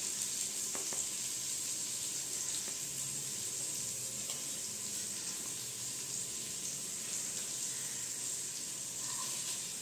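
Steady high hiss of oil sizzling in a frying pan, with a faint spoon tap about a second in.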